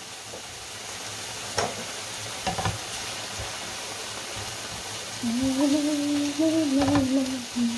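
Spinach sizzling as it fries in a pan, with a few clicks of a utensil stirring it. In the second half a woman hums a few sustained notes over the sizzle.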